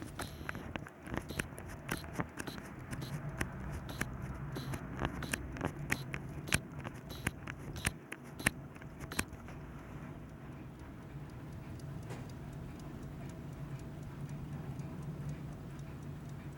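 SEIKO Soft & Loud hand-wound mechanical alarm clock: a run of irregular sharp clicks for the first nine seconds or so, then faint, even ticking of its movement.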